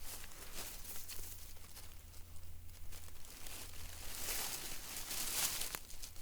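Irregular rustling and crunching of dry leaves and forest debris, loudest about four to five and a half seconds in.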